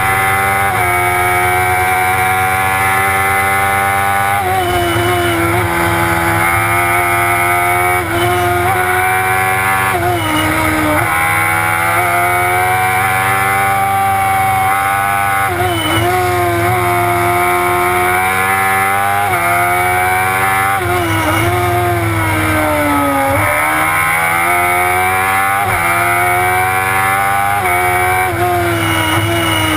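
Silver Car S2 racing car's engine heard from inside the cockpit, driven hard: the revs climb, then drop sharply every few seconds with gear changes and lifts for the bends.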